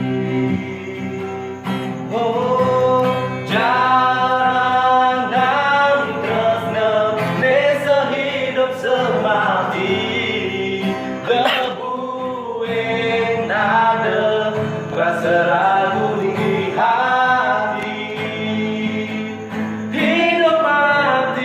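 A singing voice holding long, sliding notes over a steady instrumental backing.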